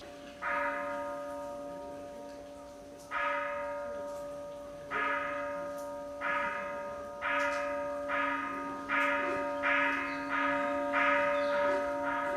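A Buddhist temple bell struck about a dozen times, the strikes coming faster and faster, each stroke ringing on with a slow decay so the tones overlap. This speeding-up series of strokes is the kind that opens a Buddhist service.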